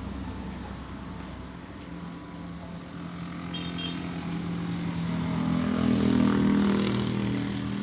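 Motorcycle engine passing by, growing louder to a peak about six seconds in and then starting to fade.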